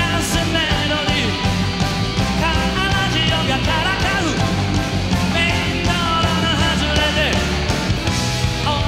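Live rock band playing with a male lead singer, electric guitar and drums, at a steady loud level.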